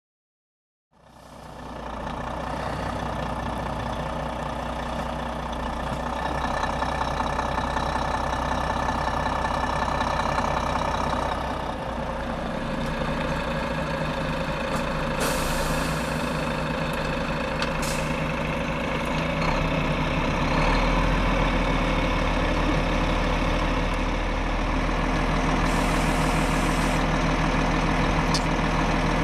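Heavy flatbed tow truck's diesel engine running steadily, fading in about a second in. Two short hisses of air come about halfway through and again near the end, with a single sharp click in between.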